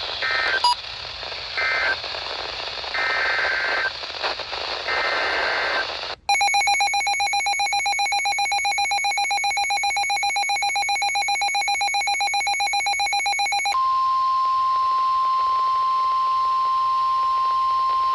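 NOAA Weather Radio alert tones over radio static. First come short bursts of the SAME digital header. Then a pulsing electronic alarm beeps rapidly for about seven seconds, and the steady single-pitch 1050 Hz weather radio warning alarm tone follows near the end, signalling a new warning about to be read.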